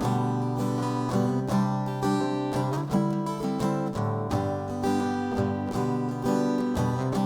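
Acoustic guitar strummed in a steady rhythm, playing the backing for a simple children's recorder song.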